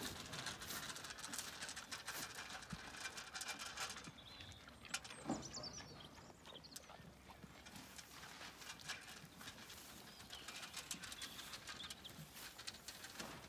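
A Zwartbles ewe and her lambs eating feed from a metal trough: a steady run of small clicks and crunches as they chew and nose through the feed, with a couple of louder knocks about five seconds in.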